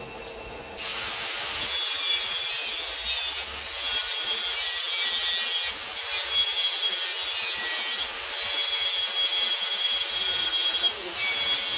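Adhesive tape being pulled off its roll in long strips and wrapped around a rewound magnetic coil: a loud, high tearing hiss that starts about a second in and breaks off briefly every two to three seconds.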